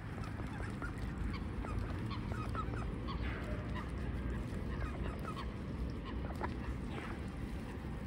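Ducks foraging at close range, giving many short, soft calls scattered through, over a steady low background rumble.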